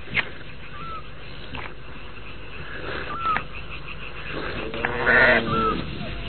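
Pasture ambience with a short bird chirp heard three times, and a sheep bleating once, starting about four and a half seconds in; the bleat is the loudest sound.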